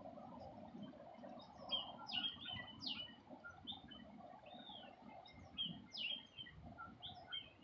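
Small birds chirping: a lively run of short, sharp notes, starting about two seconds in, over a faint low background hum.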